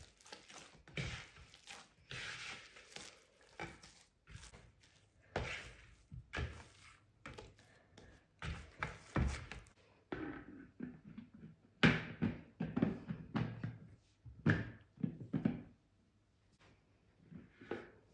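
Wheat bread dough kneaded by hand in a glass mixing bowl: irregular squelching slaps and dull thuds of the dough against the glass. About ten seconds in, the handling gives way to a few sharper knocks as a plastic lid is set on the glass bowl.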